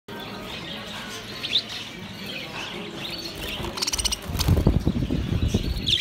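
Budgerigars chirping and chattering in a cage, with quick high sweeping calls. In the last two seconds a budgie flaps its wings close to the microphone, with rapid low fluttering thuds.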